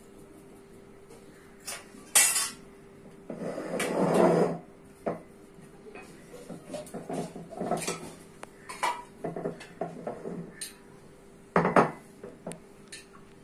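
A spoon scraping and clinking in a steel bowl as dry sattu stuffing is stirred, in short irregular strokes with a couple of sharper clinks.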